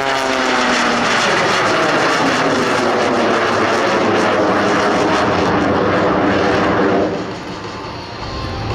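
Jet Waco biplane, a radial-engined Waco with a jet engine fitted, passing by under power. Its engine tones drop in pitch at the start, the sound stays loud and steady for about seven seconds, then quickly fades.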